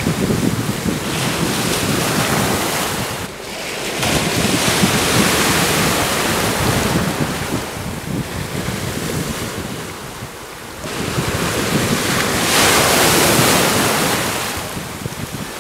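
Small waves breaking and washing up a shallow shore, the rush of surf swelling and falling back in long surges with two brief lulls, and wind buffeting the microphone underneath.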